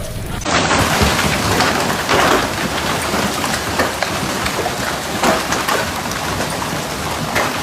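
Heavy storm rain pelting down on a surface, a dense hiss thick with sharp individual impacts, starting abruptly about half a second in.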